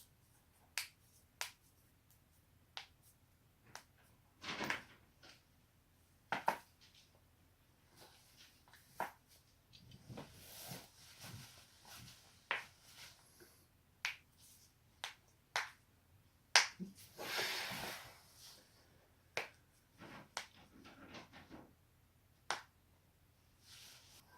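Human joints cracking: a string of sharp, single pops at irregular intervals, more than a dozen, typical of neck and back cracks. Softer hissing stretches sound between some of the pops.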